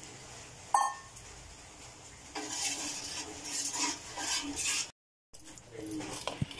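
Steel spoon stirring jaggery syrup in an aluminium pan, scraping and clinking against the metal as the syrup is cooked down thick. A single sharp clink comes about a second in, and the scraping grows busier from the middle on.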